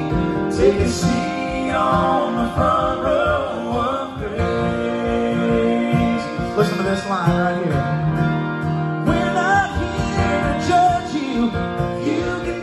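Live gospel music: acoustic guitars strumming under a male lead voice singing a wavering, drawn-out melody.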